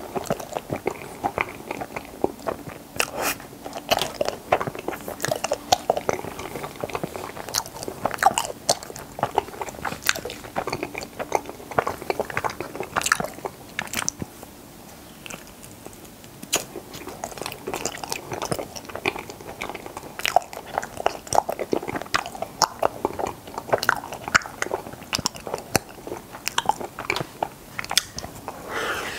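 Close-up crunchy bites and wet chewing of Chaltteok Ice strawberry, a coated rice-cake ice cream, with many small crackles, slightly quieter for a few seconds around the middle.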